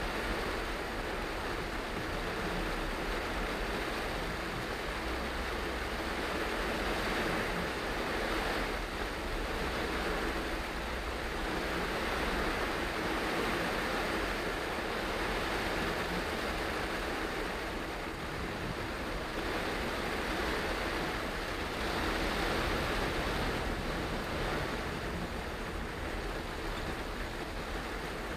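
Heavy rain on a moving car and its tyres hissing on the flooded road, heard from inside the cabin as a steady rushing noise that swells and eases a little.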